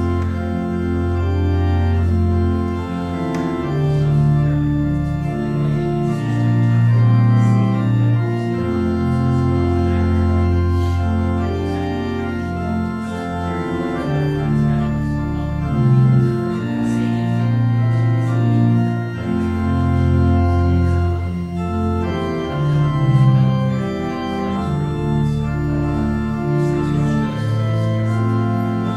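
Organ playing a slow piece of held chords over long sustained bass notes, the chords changing every second or two.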